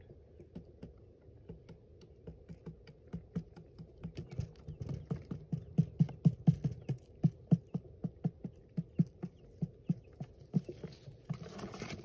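Quail pecking at grain on hard dirt: a run of sharp taps, a few a second, sparse at first and loudest around the middle. A short rustling burst comes near the end.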